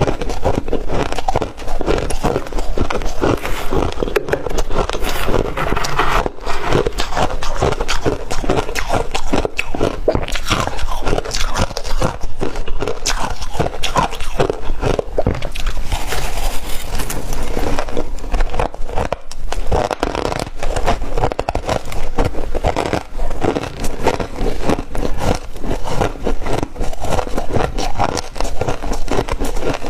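Close-up crunching of mouthfuls of freezer frost being chewed, a dense, continuous crackling.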